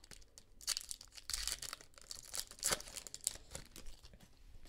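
A foil pack of football trading cards being torn open by hand, with a series of short rips and wrapper crinkles over about three seconds.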